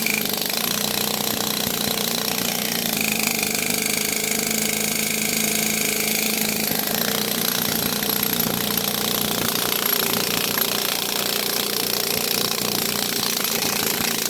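High-pressure sewer-cleaning jetter running steadily: a continuous rushing noise over a constant hum.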